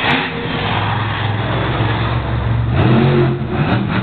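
Monster truck engine running hard, then revving up with a rising pitch a little under three seconds in.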